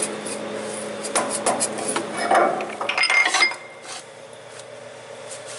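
Sharp metal clicks and knocks, then a clatter with a brief metallic ring about three seconds in, as a Versatile 260 tractor's splined PTO shaft is worked by hand in its rear housing.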